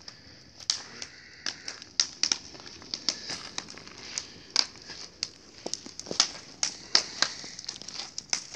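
Open fire burning in a metal mesh fire basket, crackling with many irregular sharp pops over a steady hiss.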